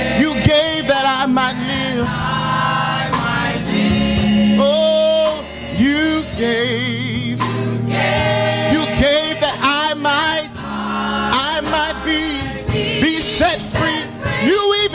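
Gospel choir singing in harmony, with a male lead voice and keyboard accompaniment holding sustained low notes.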